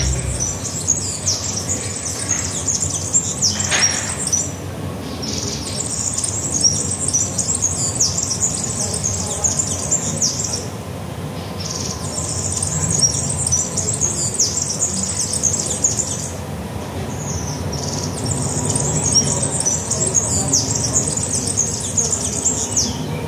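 A bird singing: four long phrases of rapid, high twittering, each about four to five seconds long with short pauses between, over steady low background noise.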